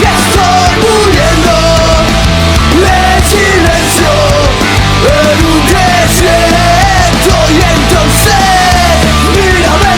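Loud punk rock band music with no words: a sliding lead melody over steady bass and drums.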